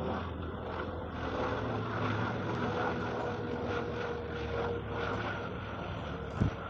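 A steady engine-like drone with a low hum and a held tone, and a low thump near the end.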